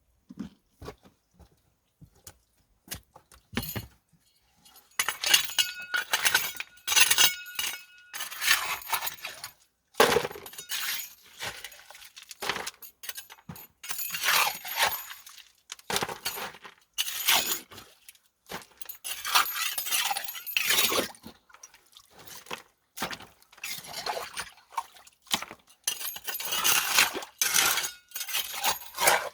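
Creek stones and gravel clinking and clattering in irregular handfuls as material is dug out and scooped into a gold pan, with a few sparse clicks at first and then steady bouts of rattling with short pauses.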